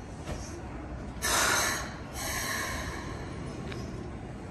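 Keikyu 600-series train pulling slowly into a platform, with two bursts of air hissing from its pneumatic brakes: a loud one about a second in, then a softer one straight after, over a low rumble.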